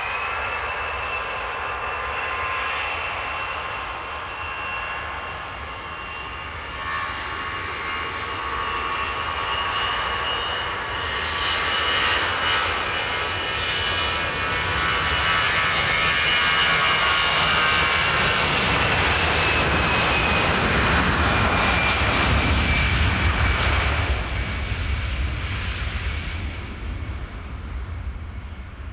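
An Airbus A320's twin CFM56 turbofan engines at takeoff power during the takeoff roll: a steady high whine over a deep roar. It grows louder as the jet rolls past, dips slightly in pitch, then fades as the aircraft moves away and lifts off.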